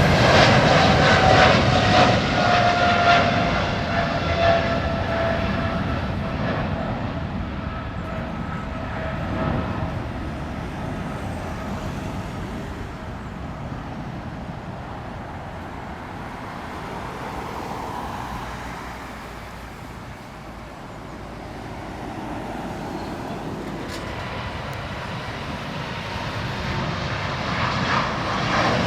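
Jet airliner's engines at takeoff power as it departs, loud at first with a whine that falls slowly in pitch as the sound fades away. Near the end the engine noise of another jet grows louder.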